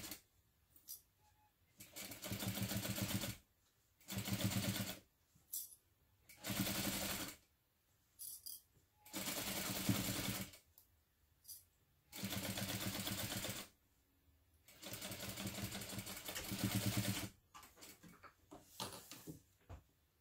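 Sewing machine running in about six short stop-start runs of one to two seconds each, stitching short quarter-inch seams with a backstitch at the start and end of each line. A few small clicks near the end as the threads are snipped.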